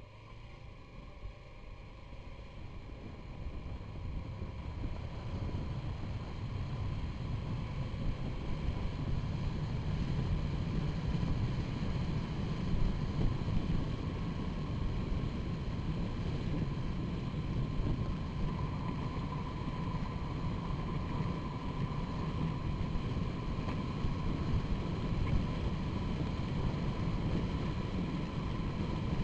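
Wind rush and tyre road noise picked up by a camera mounted under a car's front bumper at highway speed. It grows louder over the first several seconds as the car gathers speed, then stays steady, with a faint thin whine above it.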